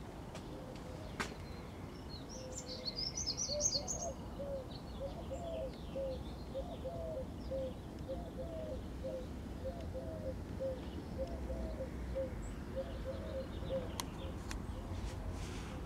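Outdoor birdsong: a quick high twittering run about three seconds in, then a long series of short low chirps, about two a second, through the middle, over steady background noise. Two sharp clicks, near the start and near the end.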